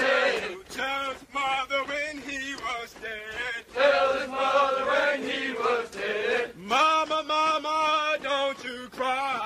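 Platoon of Marine recruits chanting a running cadence in unison while jogging in formation, in short sung phrases with brief breaks between them.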